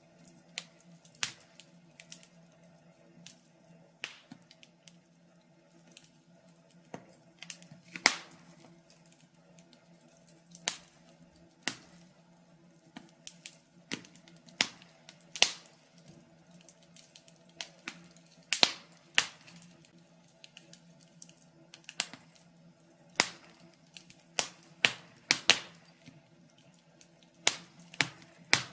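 Wood fire crackling: irregular sharp pops and snaps, a few a second, some much louder than others, over a faint steady low hum.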